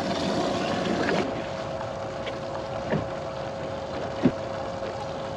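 Steady electric hum of a bass boat's trolling motor, with a rush of water noise in the first second and a few light knocks on the boat, the sharpest about four seconds in.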